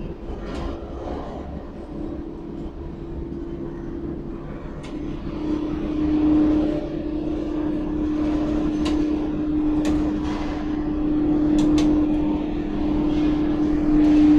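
Overhead ladle crane in a steel plant at work: a steady electric whine over a low industrial rumble, stronger from about five seconds in, with a few sharp ticks.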